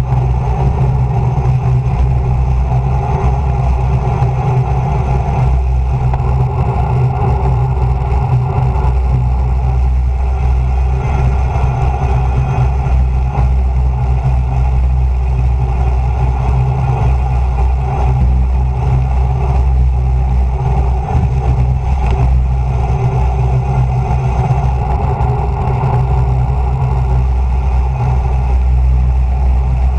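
Loud, steady wind rush on a bicycle-mounted camera's microphone during a fast road-bike descent.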